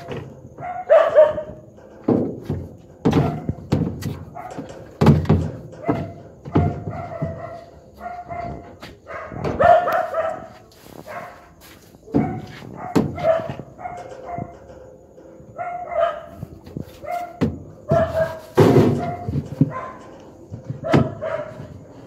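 Dogs barking repeatedly in short, irregular calls every second or two, with a brief lull midway.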